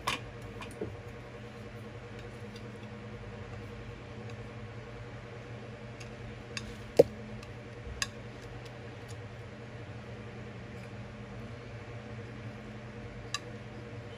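Steady low electrical hum, like a kitchen appliance or fan running, with a few scattered sharp clicks and knocks, the loudest about seven seconds in.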